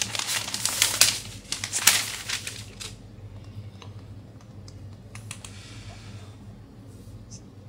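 Crinkling and rustling of the thin protective wrap sheet as it is peeled off a new iPad Pro, busy with sharp crackles for about three seconds, then dying down to a few soft handling taps and one brief rustle.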